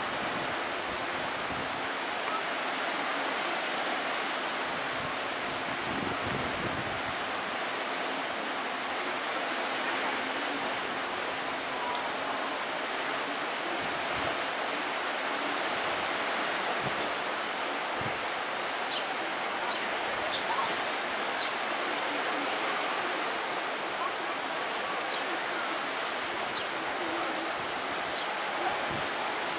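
Steady rushing of wind and sea wash along a rocky shore, with a few low thumps of wind gusting on the microphone.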